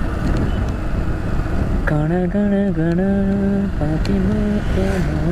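Steady road and engine noise of a vehicle on the move. From about two seconds in, a low voice hums a slow tune in held notes that step up and down.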